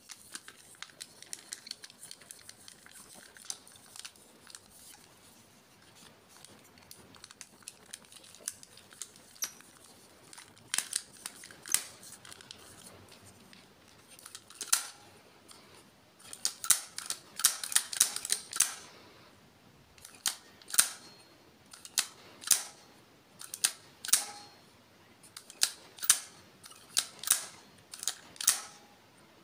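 Hard plastic clicks from a small toy figure's push-button mechanism as it is pressed and worked by hand. There are light scattered clicks and rubs at first, then louder clicks that come in a quick cluster and settle into about one click a second in the second half.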